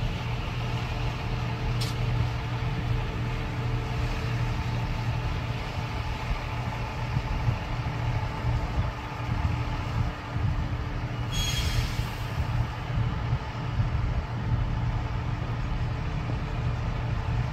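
Heavy diesel track-maintenance equipment idling steadily, a constant low drone with a short hiss about eleven seconds in.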